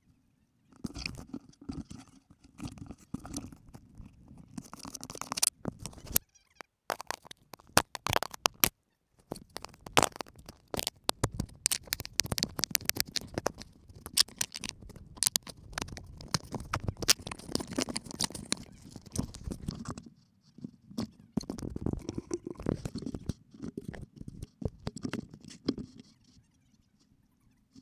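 Irregular crunching and crackling with many sharp clicks, from a handheld camera being handled and carried over dry leaf litter. It breaks off briefly twice and dies away near the end.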